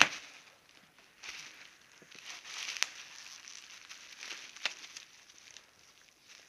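Plastic and paper packaging being handled and unwrapped from a motorcycle exhaust part: intermittent crinkling and rustling, with a few sharp clicks and taps.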